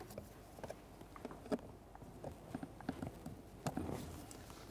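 Faint, irregular plastic clicks and taps as a blend door actuator is worked into position against the HVAC housing, with a brief scraping rustle near the end.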